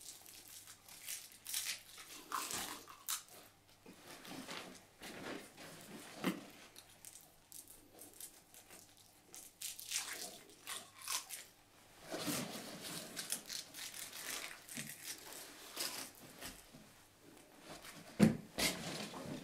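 Crinkling and tearing of a sweet wrapper being picked open by hand, in irregular faint crackles, with a sharper louder snap near the end.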